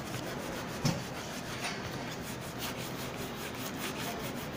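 A crumpled rag rubbed back and forth over the edge of a pasteboard book cover in quick repeated strokes, smearing on glue. There is a single thump about a second in.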